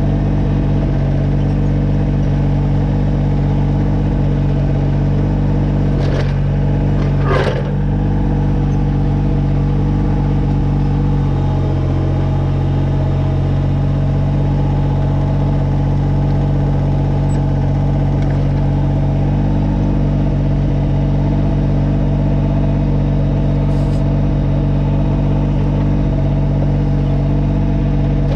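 Kubota BX22 compact tractor's three-cylinder diesel engine running steadily. Two sharp metallic clanks come close together about six to seven seconds in, and a lighter click comes near the end.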